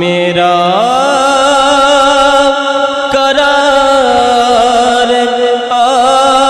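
A man's solo voice singing a naat, drawing one word out into a long held melodic line with wavering ornaments. The pitch climbs to a higher note about a second in and is sustained there.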